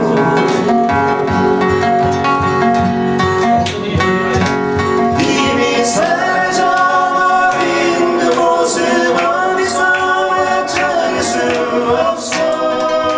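Three acoustic guitars, one of them a nylon-string classical, playing a song together while two men sing along into microphones.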